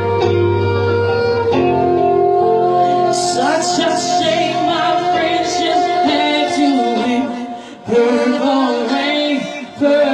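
Live band music: electric guitar and band playing under a woman singing. The sound drops out briefly twice near the end.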